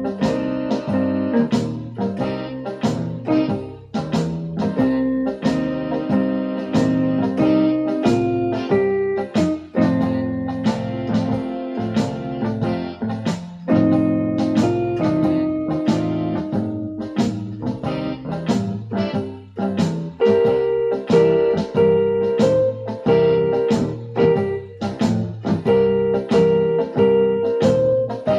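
Electronic keyboard playing a blues on a piano-like voice, with chords and a melody over a steady beat.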